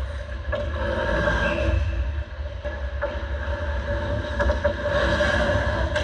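Ice hockey rink sounds: skates scraping the ice and a few sharp clicks of sticks or puck, over a steady hum and low rumble.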